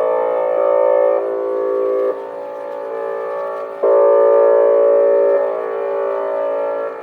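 Several Vortex R4 tornado warning sirens sounding a steady tone together during a siren test, their pitches forming a dissonant chord. The sound swells loud at the start and again about four seconds in, and is softer in between.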